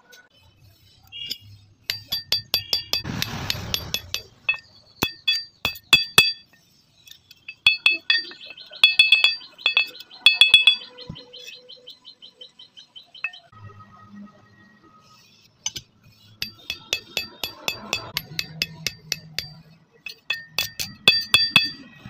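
Steel saw blade struck again and again with a metal tool in irregular runs of sharp clinks, each leaving a high, bell-like ring. There is a brief scraping noise a few seconds in.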